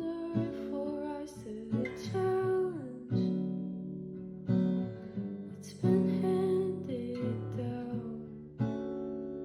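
Acoustic guitar strummed in chords, with a voice singing a slow melody over it.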